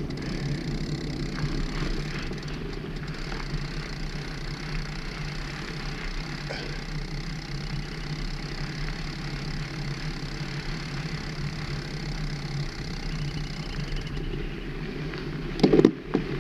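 Steady rumble of bicycle tyres rolling over a gravel path, with the bike's vibration carried into the handlebar-mounted camera. A short loud bump near the end.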